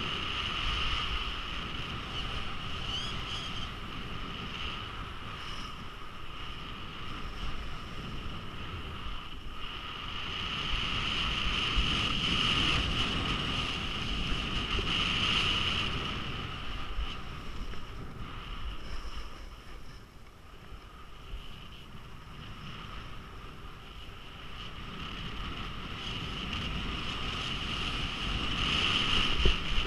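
Wind rushing over a head-mounted action camera while descending a groomed ski run, mixed with the hiss and scrape of edges sliding on packed snow. The noise swells louder around the middle and eases off about two-thirds of the way through.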